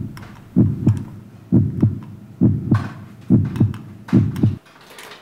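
Heartbeat sound effect: five low double thumps (lub-dub), a little under one a second, stopping shortly before the end.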